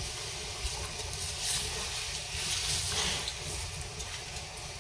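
Chopped red peppers and onions sliding out of a nylon straining bag into a pot of vinegar brine just coming to a boil, with a steady hiss from the bubbling liquid and a couple of louder swells as the vegetables go in.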